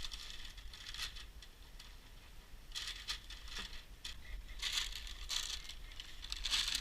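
Irregular rustling and crinkling in short bursts, busier and louder in the second half.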